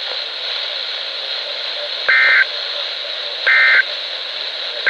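NOAA Weather Radio SAME digital data bursts coming through a RadioShack 12-993 weather radio. These are short two-tone buzzing bursts about 1.4 s apart, the end-of-message code that closes the alert. The first is about two seconds in, and a third starts right at the end, over steady radio hiss.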